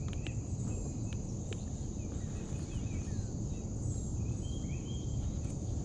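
Summer outdoor ambience on the water: a steady high-pitched insect drone with a few faint bird chirps over a low steady rumble.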